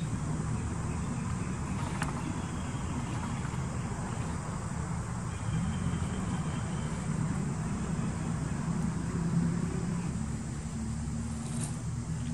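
A steady low rumble with a faint engine-like hum. A thin click sounds about two seconds in, and a couple of brief ticks come near the end.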